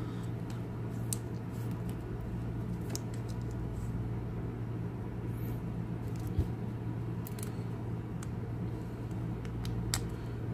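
A steady low hum, with a few light clicks and taps as a black resin watch strap is handled and buckled on a wrist.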